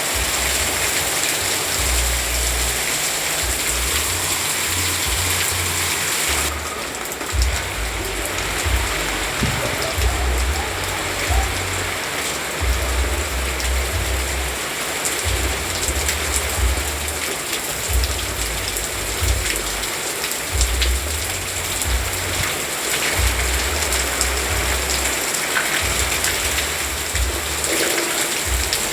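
Steady rain falling, a dense even hiss, with a low rumble that comes and goes underneath.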